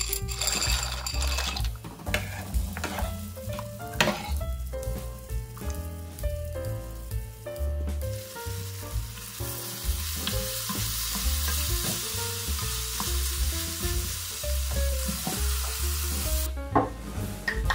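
Diced red bell pepper and spring onion sizzling in olive oil in a frying pan, a steady hiss that starts about halfway through and stops suddenly near the end. Background music with steady bass notes plays throughout.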